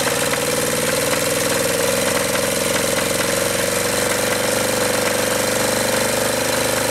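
Acme Motori ADX 740 two-cylinder diesel engine running at a steady speed, with a fast even beat and a strong hum. It is blowing heavy white smoke, which the owner takes for the engine running rich, a fuel fault not yet found.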